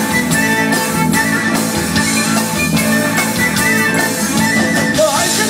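Folk-rock band playing live, an instrumental passage between sung verses: a small wooden flute plays the melody over electric guitar and drum kit, recorded on a phone's microphone.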